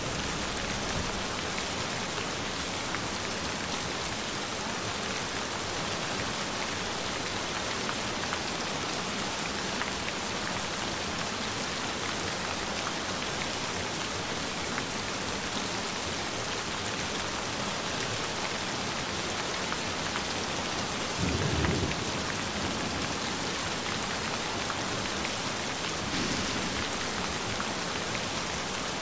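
Steady gentle rain falling, with a brief low rumble about three-quarters of the way through.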